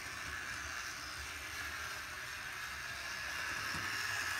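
HO-scale Dreyfuss Hudson streamlined steam locomotive model running along the track, its small electric motor and gears making a steady whir that grows louder toward the end.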